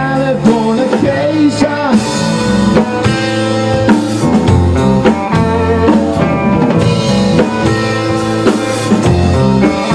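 Rock band playing live on drum kit, bass guitar and electric guitar, with one sung line near the start.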